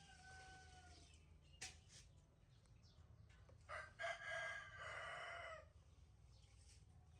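A rooster crowing: one long call of about two seconds near the middle, with the end of an earlier held call in the first second and a sharp click in between.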